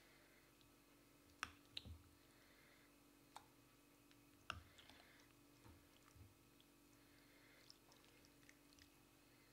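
Metal spoon clinking against the bowl and the glass baking dish as meat ragù is scooped out and spooned in, with soft wet plops of sauce. There are a handful of separate clicks, the sharpest about a second and a half in and again about four and a half seconds in, over a faint steady hum.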